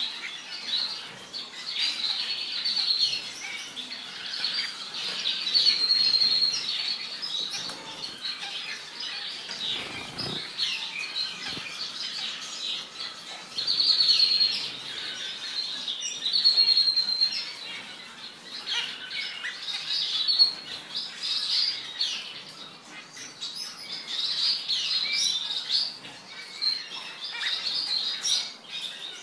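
Small aviary finches, zebra finches among them, calling continually in short chirps mixed with a few longer nasal, buzzy notes, with occasional wing flutters as birds land and leave.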